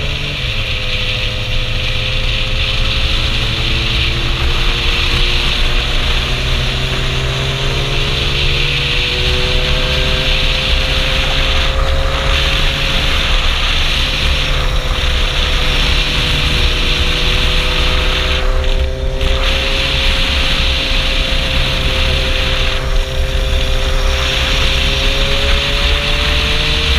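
Kawasaki Zephyr 750's air-cooled inline-four engine running at a steady cruise under heavy wind rush, its pitch drifting slowly up and down with small changes in speed.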